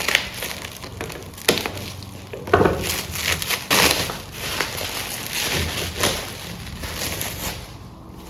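Packaging being torn and unwrapped by hand: irregular crinkling, rustling and crackling with a few sharp knocks, busiest a few seconds in.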